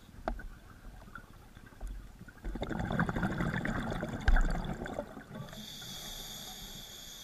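Scuba regulator breathing, heard through the camera's underwater housing. An exhale of bubbles rumbles and gurgles for about two and a half seconds in the middle, with a sharp thump partway through. Near the end comes the hiss of the next inhale through the regulator.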